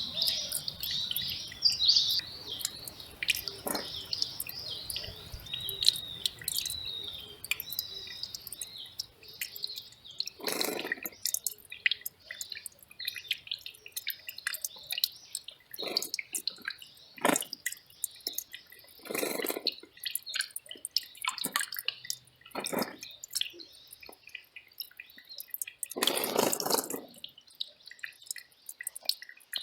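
Valley stream dripping and trickling over rocks in irregular plops, with a few louder gurgling splashes about 11, 19 and 26 seconds in. Small birds chirp through the first several seconds.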